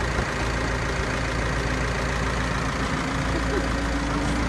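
Tractor engine idling steadily, a continuous low rumble with a steady hum.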